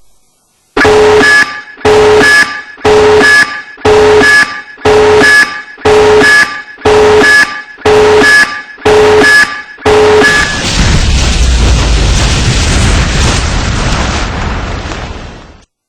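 An electronic alarm buzzer sounds about ten times, roughly once a second, each beep a harsh chord of several steady tones. Then a loud rumbling burst of noise dies away over about five seconds.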